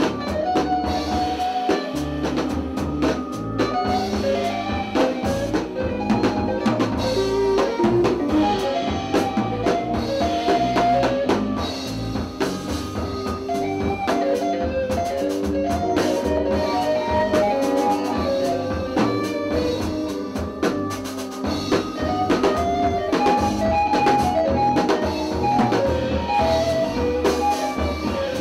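Improvised jazz from a trio of drum kit, bass and keyboards. Many drum and cymbal strokes run over changing bass notes, with a busy line of short, repeated middle-register notes on top.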